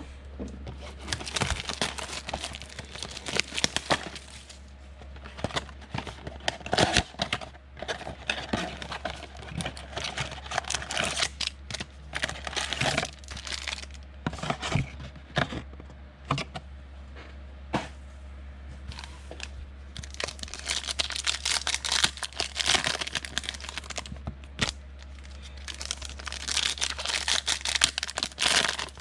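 Trading-card pack wrappers being torn open and crinkled by hand, with repeated crackly rustling and sharp clicks as packs and cards are handled. A steady low electrical hum lies underneath.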